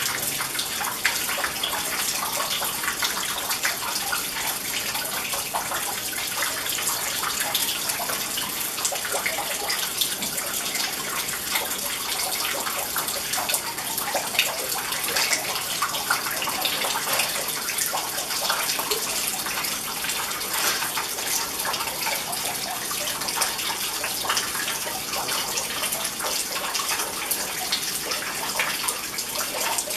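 Decorative rock water fountain: thin streams of water falling steadily and splashing into a shallow stone pool.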